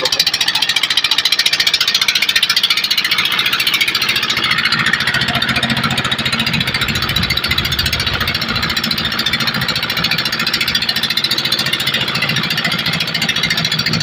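A boat's engine running steadily under way, with a fast, even beat.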